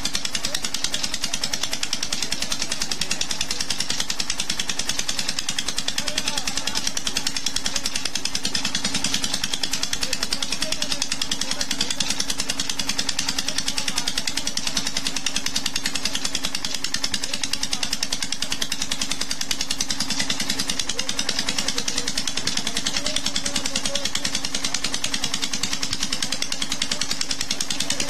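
Petter stationary diesel engine running steadily on straight jatropha oil, with an even, fast beat and a constant low drone.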